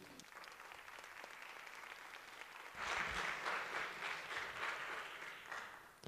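Audience applauding, faint at first, swelling about three seconds in, then dying away near the end.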